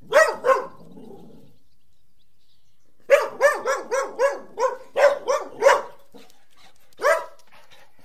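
Dog barking: two barks at the start, then after a pause a quick run of about a dozen barks at roughly four a second, and a single bark near the end.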